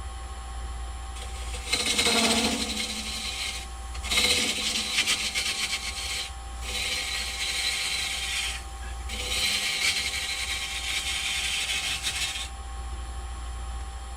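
Wood lathe running with a steady hum while a gouge, turned sideways and used like a scraper, makes four passes across the spinning poplar blank, each a hissing cut of two to three seconds.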